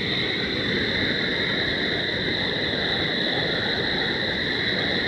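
Muddy floodwater rushing down a wadi channel in a steady, even rush.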